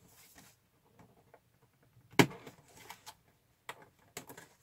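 Fingers picking at and pulling open a cardboard advent calendar door: faint scratching and small taps, with one sharp click about two seconds in and a few lighter clicks near the end.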